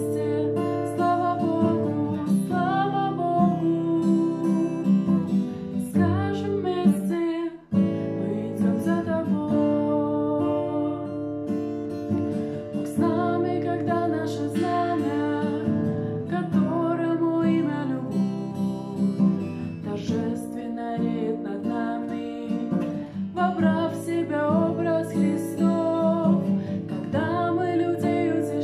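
A woman singing while strumming chords on a steel-string acoustic guitar, with a brief break about seven and a half seconds in.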